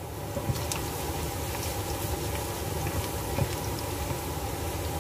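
Nam prik ong chili paste cooking in a pan: a steady hiss with many small crackles and pops, and a couple of light knocks.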